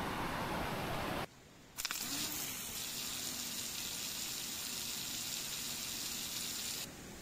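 Water jet spraying onto a spinning 3D-printed Pelton wheel that drives a hoverboard-motor generator: a steady hissing gush with a faint hum underneath that rises briefly and then holds steady. It starts after a short gap, which follows a different steady noise that cuts off about a second in, and it stops sharply near the end.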